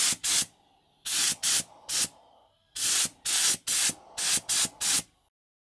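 Spray paint hissing out of the nozzle in about a dozen short squirts, grouped in three runs, as a hanging metal part is coated.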